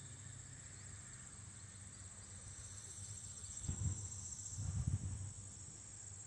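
Steady, high-pitched trilling of a chorus of insects in summer woodland. Two brief low thumps come near the middle.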